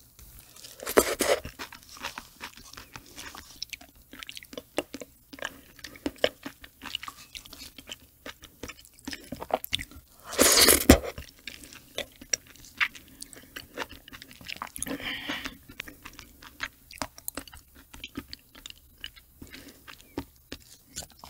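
Close-miked wet chewing of soft octopus eggs, with many small sticky mouth clicks. Two louder slurping sounds come about a second in and again around ten seconds in, as a soft lump of roe is taken into the mouth.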